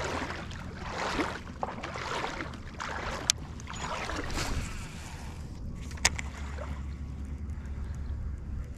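A spinning rod being cast. There is rustling and swishing, then two sharp clicks, about three and about six seconds in, from the reel's bail.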